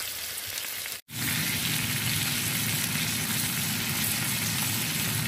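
Steaks frying in melted butter with garlic and thyme, a steady sizzle from the pan. The sound drops out briefly about a second in, then the sizzle comes back a little louder.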